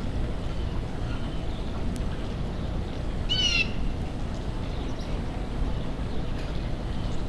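A bird gives one short call of quick, falling chirped notes about three seconds in, over a steady low rumble.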